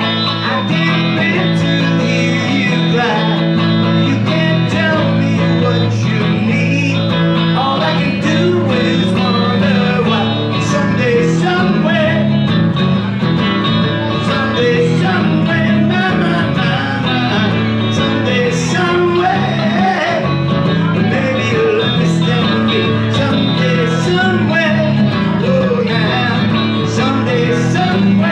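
Electric guitar played live in a pop-rock song, a steady run of chords and single notes without a break.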